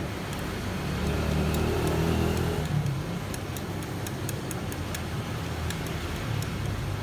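A motor vehicle's engine running, swelling louder for a couple of seconds about a second in and then easing back to a steady rumble, with light clicks of chopsticks against a small ceramic dish as wasabi is stirred into soy sauce.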